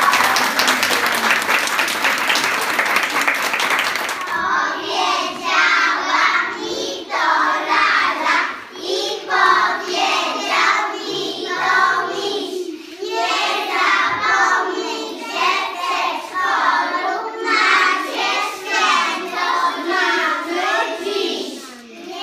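Audience clapping for about four seconds, then a group of preschool children singing a song together.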